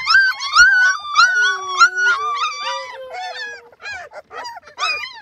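A litter of young puppies whining and howling together in high, wavering cries, overlapping thickly at first, then breaking up about three seconds in into shorter, separate whimpers and yips.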